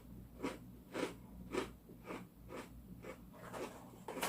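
A person chewing a crisp Papatonk cassava cracker with her mouth close to the microphone: sharp, hard crunches about twice a second.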